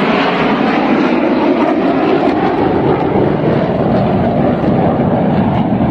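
Steady jet engine rumble from a formation of KAI T-50B jets flying an aerobatic display, getting deeper in the second half.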